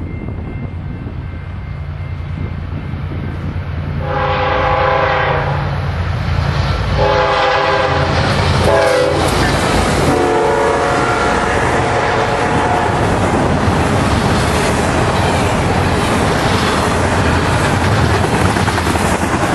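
BNSF freight train's GE diesel locomotives approaching and passing, the lead engine sounding its horn in three blasts about four, seven and ten seconds in, the last the longest. Then the steady rolling rumble and clatter of double-stack container cars on the rails.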